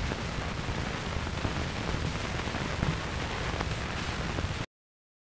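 Surface hiss and crackle of a 1928 Edison Bell Penkala 78 rpm shellac disc, the groove playing with no music left in it, with faint scattered clicks. It cuts off abruptly near the end.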